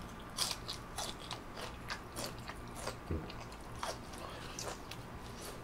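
Close-miked biting and chewing of an asparagus spear: a run of irregular crisp crunches and wet mouth clicks.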